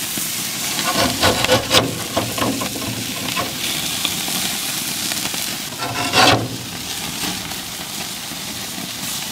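Beef burger patties sizzling on the grates of a gas grill over open flame, a steady hiss, with a few short clatters about a second in and a louder burst around six seconds in.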